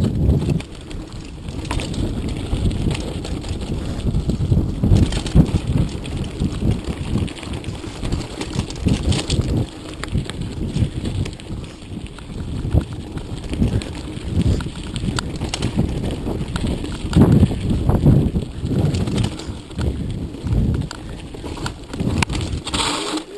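Mountain bike riding over rough, rocky ground, with tyres crunching and the bike rattling and knocking unevenly over the bumps. Wind buffets the microphone.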